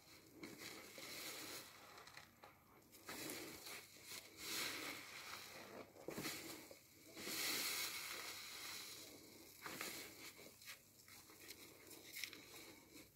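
A new car sponge squeezed again and again in thick soapy foam: wet squelching and crackling of suds, one squeeze every second or two, the longest and loudest just past the middle.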